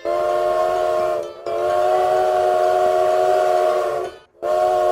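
Puffing Billy steam locomotive's whistle sounding a steady chord of several tones: a short blast, a long blast of about two and a half seconds, then another short blast near the end, as the train sets off.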